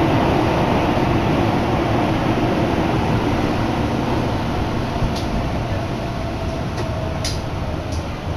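Keihan Main Line train heard from inside the car: steady running rumble that eases as the train slows into a station, with a few short high ticks in the second half.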